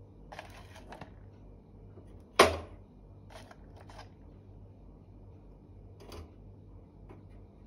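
Charcoal pieces handled and set on a gas stove burner: scraping and clinking against the metal pan support and the plastic tub, with one sharp knock about two and a half seconds in and a few lighter clicks after.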